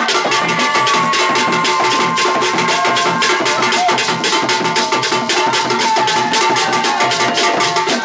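Traditional hand drumming in fast, dense strokes, with sharp wooden clicks among the beats and a long held note running over the top.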